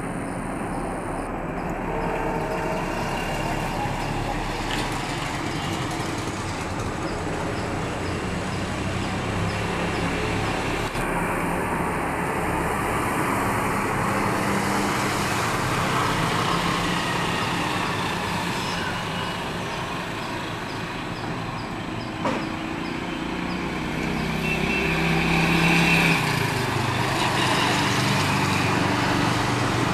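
Indian Railways passenger coaches rolling past, a steady rumble of wheels on the rails, with a single sharp knock a little past the middle and a louder stretch as the last coach draws near.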